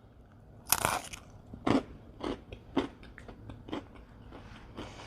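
A person bites into a crunchy pretzel with cheese and chews it close to the microphone. One loud crunch just under a second in is followed by a series of shorter, uneven chewing crunches.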